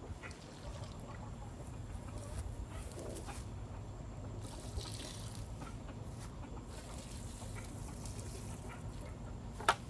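Water pouring steadily onto garden soil as plants are watered, with one sharp knock near the end.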